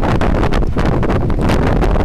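Wind buffeting the microphone: a loud, steady rumble with gusty crackle.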